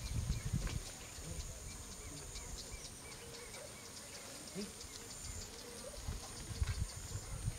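Lakeshore ambience: small birds chirping in quick repeated notes over a steady high insect drone. Low rumbles near the start and again near the end.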